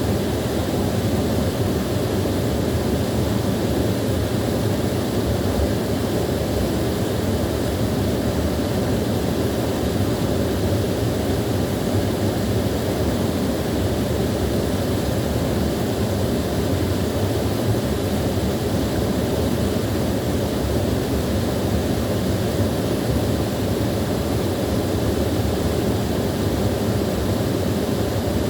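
Small waterfall: water pouring and splashing in a steady, unbroken rush.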